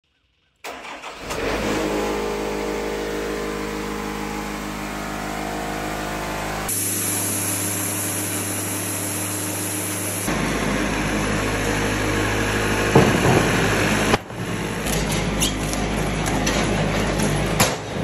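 Wood-Mizer sawmill's engine cranked with the key and catching within a second, then running steadily. Its note changes abruptly a few times, with a single sharp knock about thirteen seconds in.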